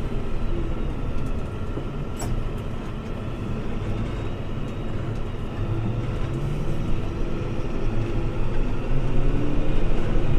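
Fendt 724 tractor's six-cylinder engine running on the move, heard from inside the cab over a steady rumble, its note climbing in the second half. A single click about two seconds in.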